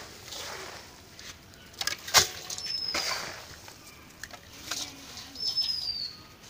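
Rustling and scraping of a moist grain-and-straw goat feed mix being shared out by hand into containers, with one sharp knock about two seconds in. A bird's short falling whistle repeats about every three seconds.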